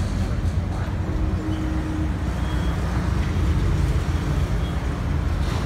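Ryobi 1000 W inverter generator's small petrol engine running at a steady speed, a low continuous drone that doesn't change.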